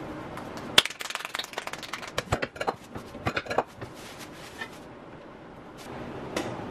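A tortilla press being worked: a sharp clack about a second in, then about three seconds of quick crinkling and crackling of the press's plastic sheet as a ball of corn masa is flattened and the raw tortilla is peeled off.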